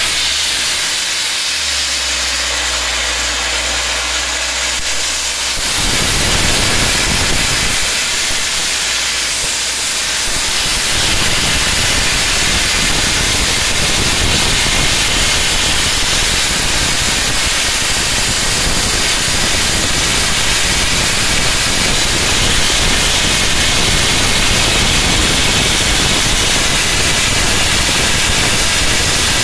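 A high-pressure cleaning lance spraying onto a graffitied brick wall: a loud, steady hiss of jet and spray as the paint is blasted off. A low hum runs under it for the first few seconds, and the hiss grows fuller about six seconds in.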